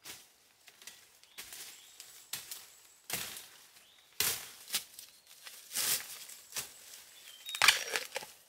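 Dry leaf litter rustling and crunching as a hand tool is dug and scraped through it. It comes in irregular strokes about once a second, and the loudest is near the end.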